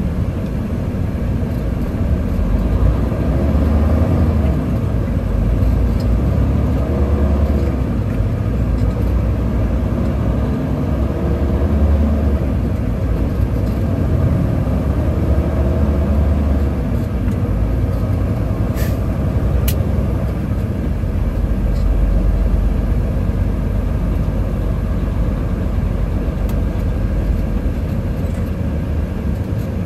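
Inside a moving semi-truck's cab: the diesel engine and road noise make a steady low rumble. Two short clicks come a little under two-thirds of the way through.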